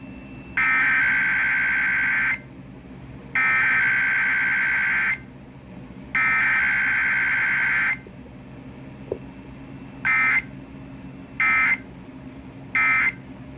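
Emergency Alert System SAME digital data tones, a harsh warbling buzz. Three long bursts of nearly two seconds each, about a second apart, form the alert header. Then come three short bursts about a second and a half apart, the end-of-message code, with no attention tone or voice message in between.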